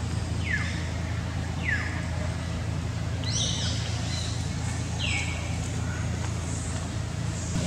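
About five short, high-pitched animal calls, each sliding quickly down in pitch, over a steady low hum.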